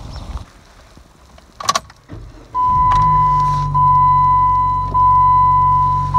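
A car door shuts with a thump, then the Jeep Patriot's four-cylinder engine starts and settles into a steady idle. Over the idle a loud dashboard warning chime sounds: a steady high tone, briefly broken about once a second.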